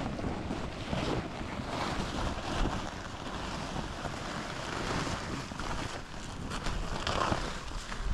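A large woven plastic tarp rustling in irregular surges as it is dragged and folded over, with wind buffeting the microphone.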